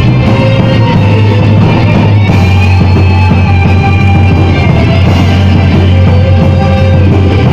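Gothic metal band playing live, with guitars, bass and drums, loud and continuous.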